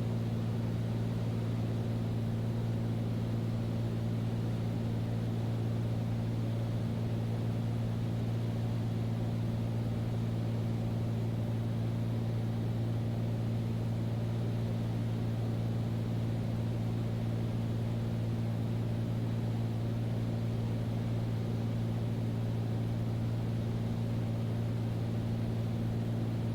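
Steady drone of a Beechcraft Bonanza's piston engine and propeller, heard from inside the cockpit in flight, with a constant low hum and no change in power.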